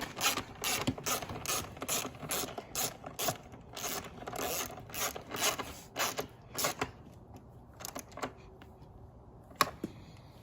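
Hand socket ratchet clicking in quick strokes, about three a second, as bolts are run in and tightened. The clicking stops about seven seconds in, leaving a few scattered clicks and one sharper click near the end.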